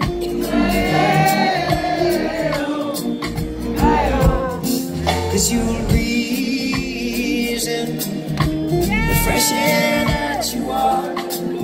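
Live music with singing: long sung notes that swell and bend in pitch over steady held instrument notes.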